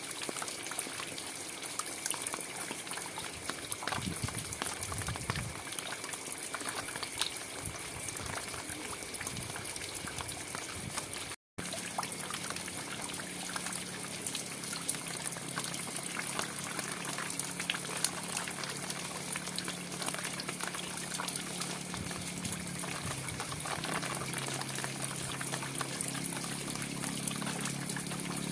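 Steady rain falling, with many small drop impacts ticking through it. The sound cuts out for a split second about eleven seconds in, and after that a low steady hum sits underneath the rain.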